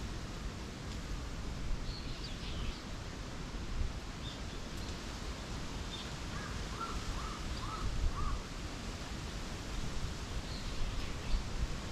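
Wild birds calling in a forest: scattered short high chirps, and about six seconds in a run of five quick lower calls. A steady low rumble of wind on the microphone lies underneath.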